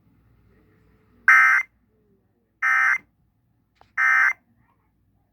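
Emergency Alert System end-of-message data bursts on a radio broadcast: three short, identical buzzy digital squawks about a second and a half apart, marking the end of the alert.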